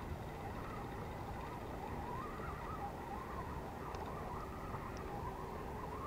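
Steady low wind rumble on the microphone in strong wind, with a faint wavering hum over it.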